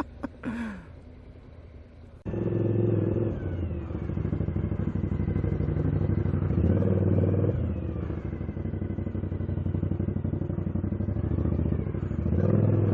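Suzuki SV1000's V-twin engine running under way, starting abruptly about two seconds in and then swelling and easing off a few times with the throttle.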